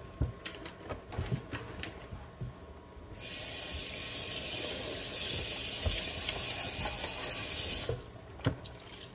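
A kitchen water tap runs steadily for about five seconds, turning on about three seconds in and shutting off abruptly. Light rustles and small knocks of towels being tucked into a drawer come before and after it.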